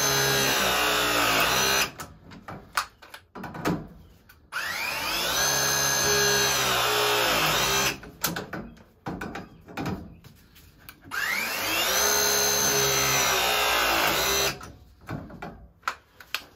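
Battery-powered copper press tool crimping press fittings onto copper water pipe: three press cycles, each a motor whine of about three and a half seconds that rises in pitch as it spins up, holds, then cuts off. Between the cycles there are clicks and knocks as the jaws are set on the next joint.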